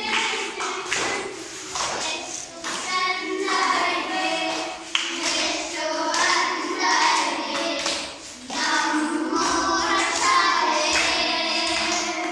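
A group of children singing a song together, with hand claps keeping time.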